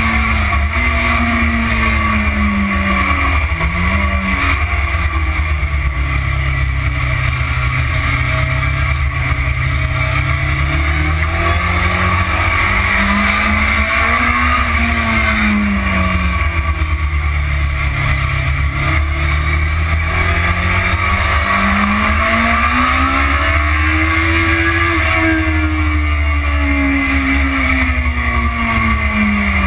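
Motorcycle engine heard from a camera mounted on the bike while it laps a race track, its pitch falling as the rider eases off for corners and rising again as he accelerates out, several times over. A heavy steady rumble of wind on the microphone lies under it.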